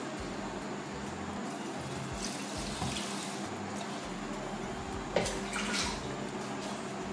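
Water pouring steadily into a blender jar of pre-soaked rice. There is one short knock about five seconds in.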